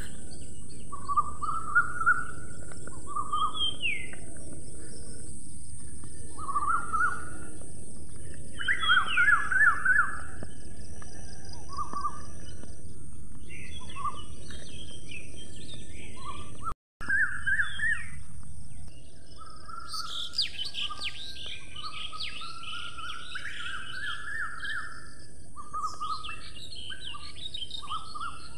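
House sparrows chirping: clusters of short, repeated chirps over a steady background hiss, growing busier and higher-pitched in the last third, with a momentary gap in the sound about two-thirds of the way through.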